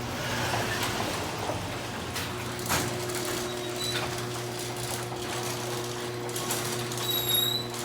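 AccessMaster chain-drive garage door opener running, moving a large 16x10 sectional door with a steady motor hum. A couple of short high squeaks come near the end.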